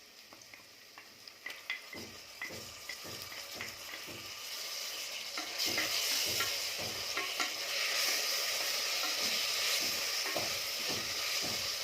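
Ginger-garlic paste frying with onions and green chillies in hot vanaspati in a pressure cooker, with a spoon tapping and scraping against the pot as it is stirred. The sizzle builds and grows loud about halfway through as the paste sautés.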